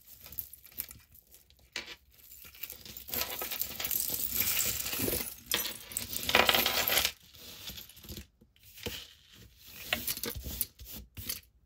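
Beaded necklaces and metal chain jewelry clinking and rattling as a hand rummages through a tangled pile, with scattered small clicks. It is busiest for a few seconds in the middle.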